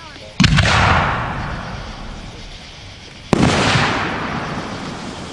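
Two aerial firework bursts, about three seconds apart. Each is a sudden sharp bang followed by a long echoing fade.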